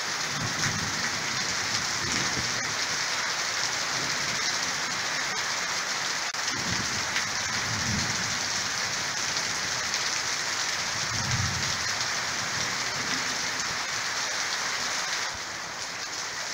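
Heavy rain pouring steadily in a thunderstorm, a dense even hiss, with a few low rumbles now and then. It gets a little quieter near the end.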